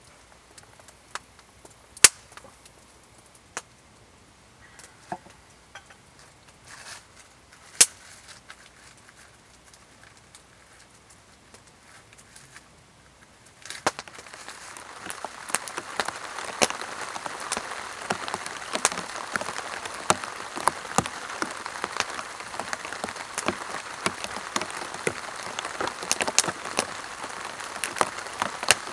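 Campfire crackling, with a few sharp pops of burning wood. About halfway through, this gives way to steady rain pattering on a tarp shelter roof.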